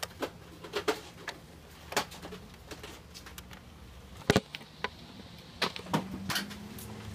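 Scattered light clicks and knocks from a toy foam-dart blaster being handled right against the camera, the loudest about four seconds in.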